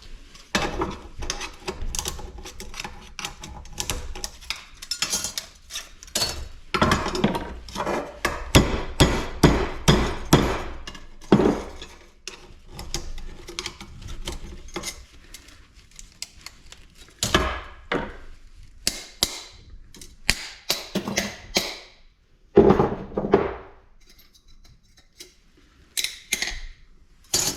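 Repeated hammer blows on an extruded aluminum piece from a large light fixture, with metallic clanks and some short ringing. The strikes come in quick runs through the first half, then more spaced out with a lull near the end.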